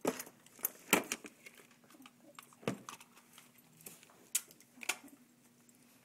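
About five sharp clicks and knocks of handling, the loudest about a second in, as things are picked up and moved on a worktable, over a faint steady hum.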